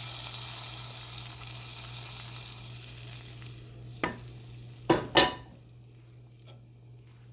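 Food sizzling in a frying pan, the hiss fading over the first few seconds, then three sharp knocks about four to five seconds in, the last one the loudest.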